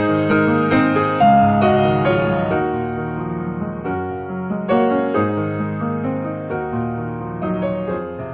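Background music: a gentle piano piece playing notes and chords.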